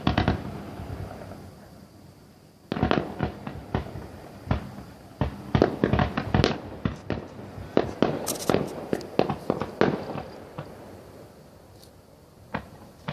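Fireworks going off. A few bangs come at the start, then after a short lull a dense run of sharp bangs and cracks lasts about seven seconds and thins out, with one last bang near the end.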